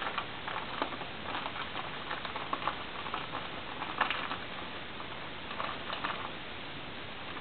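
Soft, irregular smacking clicks of an animal's mouth, licking and nibbling at close range, a little louder about four seconds in.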